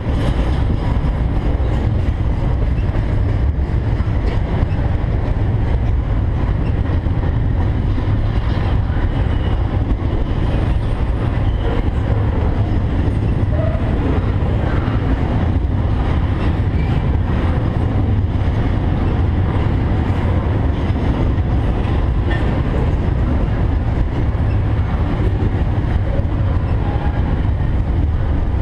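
A long intermodal freight train's cars rolling past, a steady, loud rumble of steel wheels on the rails.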